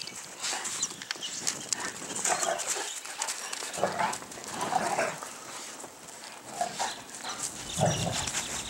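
Two dogs at play in snow: short dog vocalizations several times, over scuffling and crunching of paws in the snow.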